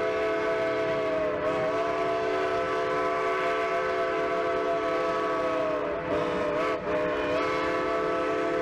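Steam locomotive's chime whistle blowing one long chord of several notes at once, wavering briefly twice about six and seven seconds in.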